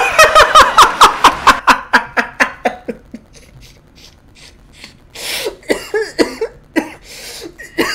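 A man laughing hard in a fast run of laughs that fades out about three seconds in, then a sharp breath and a few more laughs near the end.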